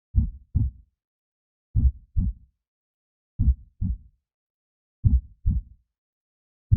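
Heartbeat sound effect: slow, even lub-dub double thumps, deep and low, a pair about every second and a half with silence between.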